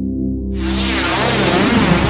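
Steady electronic synthesizer drone. About half a second in, a loud whoosh sound effect starts suddenly and sweeps steadily downward in pitch over it.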